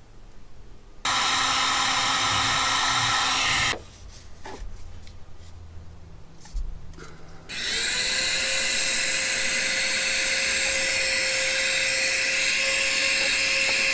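Electric heat gun blowing, shrinking heat-shrink tubing over a freshly soldered wire joint. It runs for a few seconds, stops for a stretch of handling clicks, then switches on again about seven seconds in. Its motor whine rises as it spins up, and then it runs steadily.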